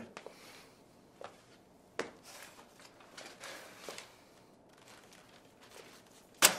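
Chalk scratching and tapping on a blackboard in short, quiet strokes, with a sharp knock near the end.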